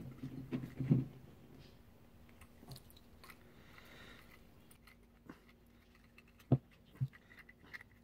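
Grey plastic Duotight push-in fittings being screwed by hand onto the threaded metal outlets of a four-way CO2 gas manifold: soft scattered clicks and taps of plastic and metal handling, the sharpest about six and a half seconds in with another half a second later.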